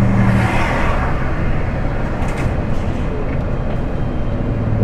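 Inside a lorry cab, a car-transporter truck's engine and road noise run steadily while it drives. A low engine hum fades out about half a second in.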